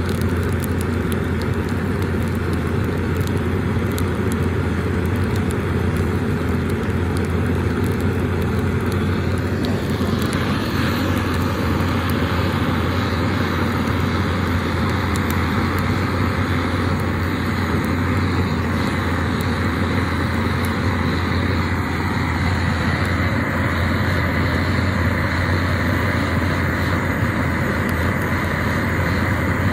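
Propane torch burning steadily with a constant rushing noise as its flame blasts into a stack of firewood to light it; the sound shifts slightly in tone about ten seconds in.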